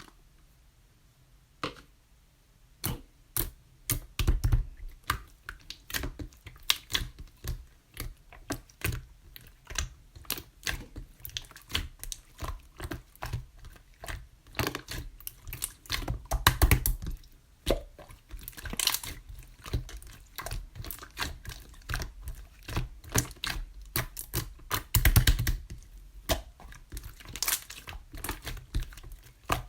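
Clear slime being pressed and worked by hand, giving a fast, irregular run of sticky clicks and small pops that starts about two seconds in, with louder bursts now and then.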